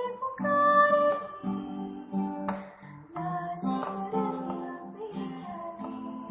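A voice singing a melody over a strummed acoustic guitar.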